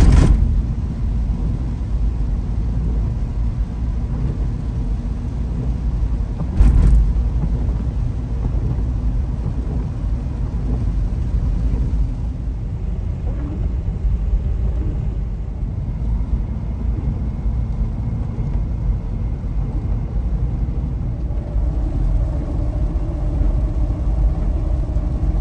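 Toyota Land Cruiser 80 Series (FZJ80) on the move: the steady rumble of its 4.5-litre inline-six and the road, with a short thump about seven seconds in.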